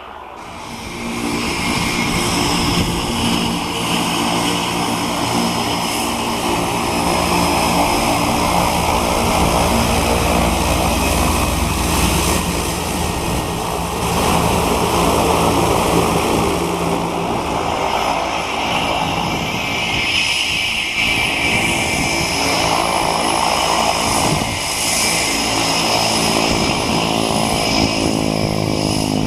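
Cessna 208 Caravan's Pratt & Whitney PT6A turboprop and propeller running loud, with a high turbine whine over the propeller drone. The sound swells over the first two seconds and then holds steady.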